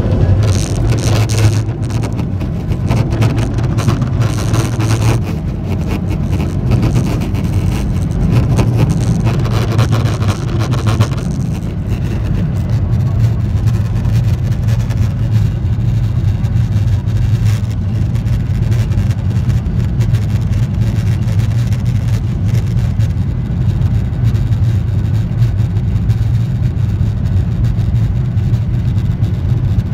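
Cabin noise of a Boeing 737-800 taxiing: a steady low hum from its CFM56 turbofan engines at low taxi power, with the rumble of the airframe rolling on the taxiway. There is extra hiss in the first several seconds.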